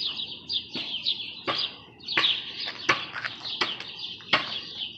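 Songbirds chirping continuously in rapid, repeated short high notes, with sharp knocks about every 0.7 seconds from about a second and a half in.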